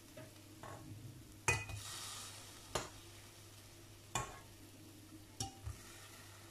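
Fried gulab jamun being dropped one at a time from a steel ladle into a pot of sugar syrup: four sharp clicks of ladle and pot a little over a second apart, with a short hiss after the first.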